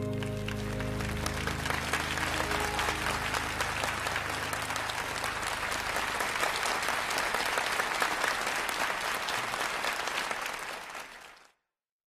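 Audience applauding, with the band's last held notes dying away under it in the first couple of seconds; the applause fades out near the end.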